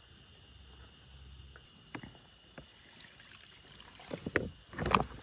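Water splashing out of a collapsible plastic water bag into a plastic bowl, in uneven gushes about four seconds in, after a few faint ticks.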